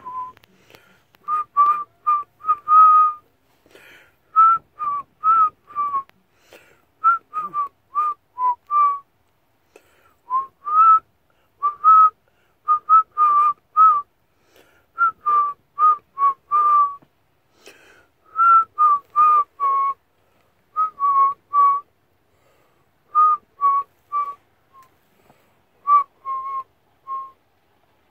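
A woman whistling a tune through pursed lips: a run of short, separate notes within a narrow range of pitch, in phrases broken by brief pauses.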